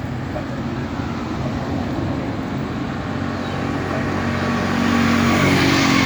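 Motor vehicle running close by, with a steady low engine hum; it swells to its loudest about five seconds in, as of a vehicle passing.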